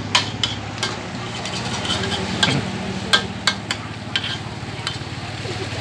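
Minced duck being stir-fried in a wok over a gas burner: a spatula clinks and scrapes against the pan many times at an uneven pace, over a steady low hum.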